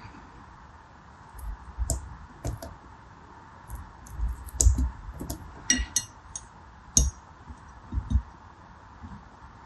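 A knife blade cutting through small translucent soap beads held between the fingers: a string of sharp crisp clicks and crunches, about a dozen at uneven intervals, some with a soft low thud.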